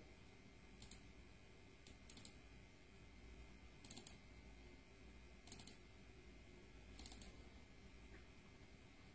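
Near silence with a low steady hum, broken by a few faint, sharp computer clicks, some in pairs, a second or two apart.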